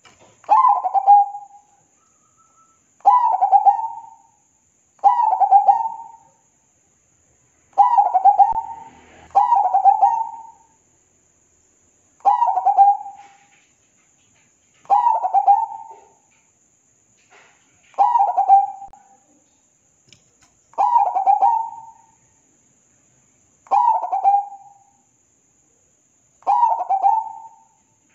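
Zebra dove (perkutut) cooing: a series of short, rapidly stuttering coo phrases, each about a second long, repeated every two to three seconds, about eleven in all.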